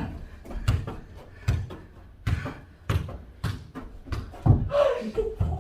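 A soccer ball being kicked back and forth and bouncing in a quick rally: a run of about eight sharp thuds, roughly two a second. A brief voice is heard near the end.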